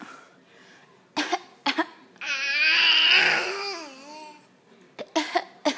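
A young child fake coughing in short, sharp bursts: a pair about a second in, then a long wavering vocal sound, then a quick run of four coughs near the end.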